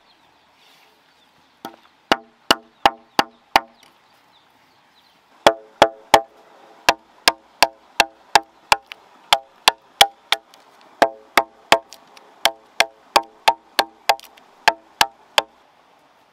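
Machete chopping into a bark-covered wooden log: a short run of about six blows, a pause, then a long steady run at about three blows a second. Each blow rings briefly. The chopping stops a second before the end.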